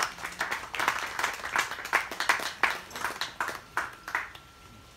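Small audience applause: scattered hand claps that thin out and die away about four seconds in.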